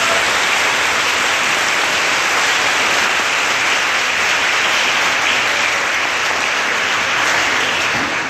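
Audience applauding steadily, easing off at the very end.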